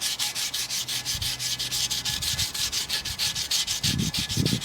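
Fine 800-grit sandpaper rubbed by hand over corroded aluminum on a wheel rim in rapid, even back-and-forth strokes. It is scouring off the corrosion left by tire stop-leak so the rim will seal against the tire bead.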